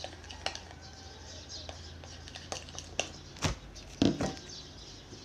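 Stirring thick batter in a glass bowl, the utensil clicking and scraping against the glass, with two louder knocks about three and a half and four seconds in.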